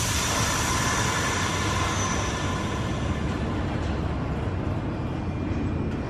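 Nagano Electric Railway 3500-series electric train pulling slowly into an underground station platform, with a steady low rumble. A hiss and a high brake squeal start suddenly at the beginning and fade over the next few seconds.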